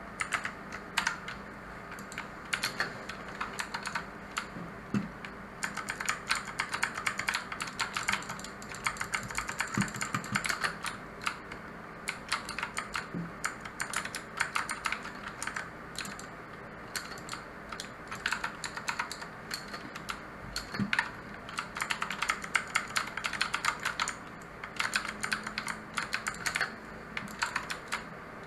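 Typing on a mechanical keyboard with clicky blue switches: rapid runs of sharp keystroke clicks in bursts, with short pauses between them.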